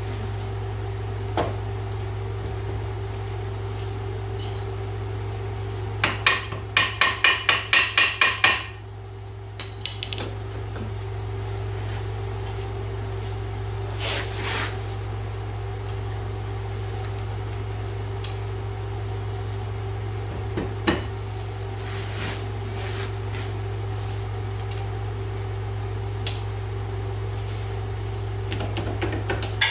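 Hand tools working on an ATV's front A-arm ball joint, most likely a ratchet wrench snugging down the castle nut: a quick run of about nine sharp metallic clicks a few seconds in, then scattered single taps and clinks. A steady hum runs underneath.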